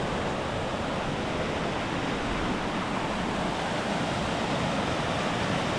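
Steady, even rushing noise of rain and wind on the microphone.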